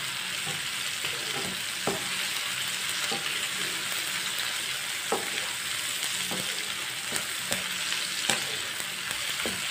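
Bitter gourd strips, onion, green chillies and tomato sizzling in hot oil in a non-stick frying pan. A wooden spatula stirs them, scraping and tapping against the pan at irregular moments.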